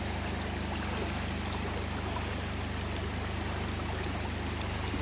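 Shallow, fast-flowing rocky stream, water rushing over stones in a steady, even rush.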